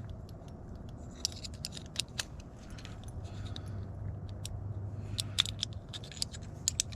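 Small metal parts of a lever-handle lock clicking and scraping as they are handled and fitted together: irregular sharp ticks. A low hum sounds for a few seconds in the middle.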